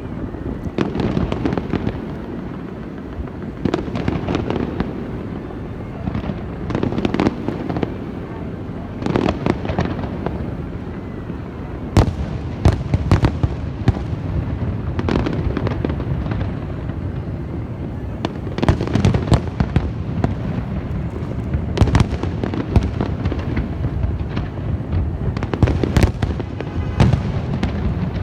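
Fireworks going off without a break: a steady din of low booms and crackling, punctuated by many sharp, loud cracks.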